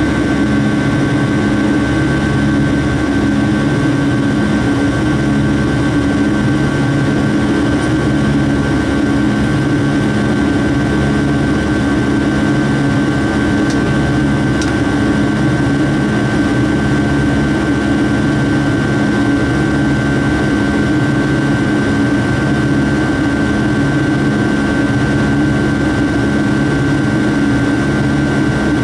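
Rolls-Royce RB211 turbofan engines of a Boeing 757-200 heard from inside the cabin during the climb: a loud, steady rush with a steady high whine and a low drone that wavers in and out.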